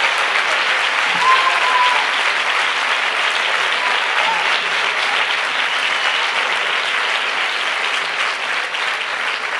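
A large indoor audience applauding, a dense, sustained clapping that slowly tapers off toward the end.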